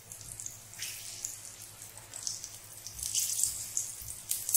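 Green chillies and asafoetida sizzling and crackling in hot ghee in a small steel tadka pan as the tempering fries, with one sharp click near the end.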